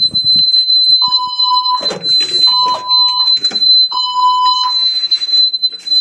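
Building fire alarm evacuation system sounding its signal: three pulsed beeping tones, then a pause before the next set, the temporal-three evacuation pattern, over a steady high-pitched tone.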